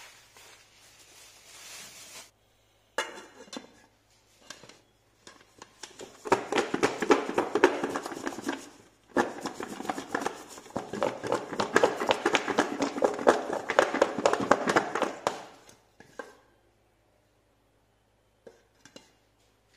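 Potato slices and flour being shaken by hand in a lidded metal bowl: a fast, dense rattling in two long bouts starting about six seconds in, with a brief pause between them. A single sharp knock comes about three seconds in.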